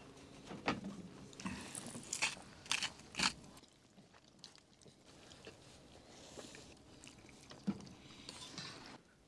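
Wooden plates and cutlery knocking and clinking on a wooden slat table: a handful of sharp clacks in the first few seconds, then fainter scattered clinks.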